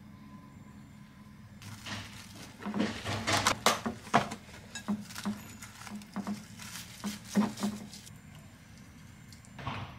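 Plastic cling wrap crinkling as it is pulled from its box and pressed down over a bowl. A run of sharp crackles starts about two seconds in and dies away near the end.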